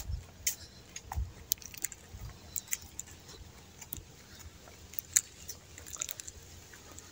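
Footsteps on a dirt track littered with dry leaves and stalks: scattered crunches and crackles with a few soft low thuds in the first two seconds or so.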